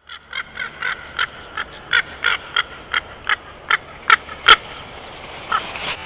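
A bird calling: a quick series of about fourteen short, pitched call notes, roughly three a second, growing louder to the loudest note about four and a half seconds in, then one last note after a pause.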